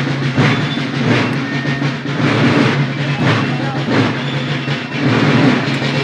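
Marching military side drums beating a steady march cadence, with a strong beat about every three-quarters of a second.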